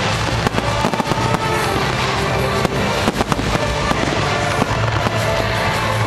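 Fireworks bursting in quick, irregular succession, sharp bangs and crackling, over music played over loudspeakers.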